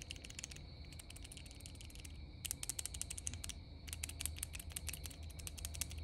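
Worn hydraulic roller lifter from an L86 6.2 V8 shaken by hand, rattling with rapid metallic clicks in about four short bursts: the slop worn into its chewed-up roller.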